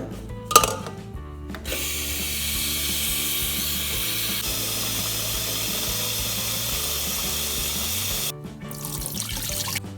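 Kitchen tap running water into a pot for about six seconds, then shut off suddenly, after a sharp click about half a second in. Background music plays underneath.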